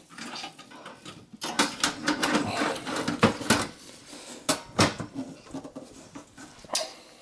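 A computer power supply being fitted into a desktop tower case: irregular handling noise, scraping and a series of sharp clicks and knocks as the unit is pushed into place.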